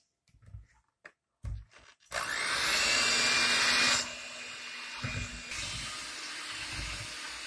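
Electric hand mixer switched on about two seconds in, its motor whining up to speed and then running steadily as its beaters mix cake batter in a plastic bowl. It gets quieter about halfway and runs on evenly; before it starts there are a few light knocks.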